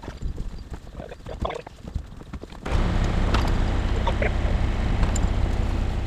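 Wooden knocks and thumps of straw bales and boots on a wooden wagon deck while bales are stacked. About halfway through, a much louder, steady low rumble sets in and carries on over the knocks.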